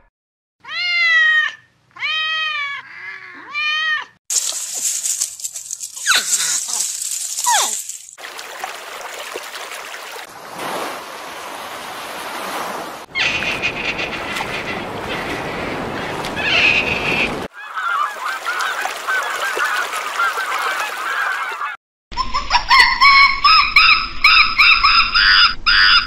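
A run of different animal sounds cut one after another. In the first few seconds there are about four calls, each rising and then falling in pitch. Several stretches of noise without a clear pitch follow, and near the end comes a fast string of short, high calls.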